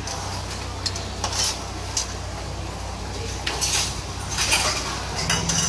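Clay pots, a spoon and a small bowl clinking and knocking in irregular handfuls as claypot noodles are finished and a pot is lifted off its gas burner, over a steady low hum.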